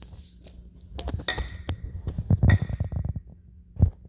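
Kitchenware clinking and knocking: a series of sharp knocks against a dish, two of them leaving a brief high ring.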